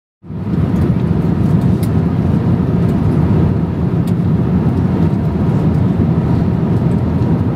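Steady cabin noise of an Airbus A350-900 in cruise flight, an even low rush of airflow and engines, starting a moment in after a brief silence.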